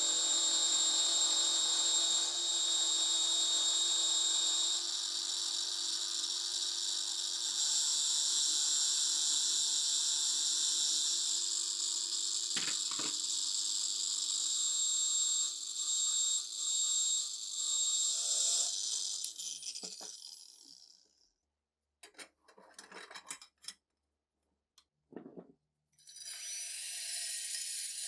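Angle grinder clamped in a bench vise, running steadily while rusty metal gun parts are held against its spinning wheel, then spinning down about twenty seconds in. A few seconds of scattered clicks and knocks of parts being handled follow, and near the end a cordless drill starts up with a brush turning inside a rusty steel bore.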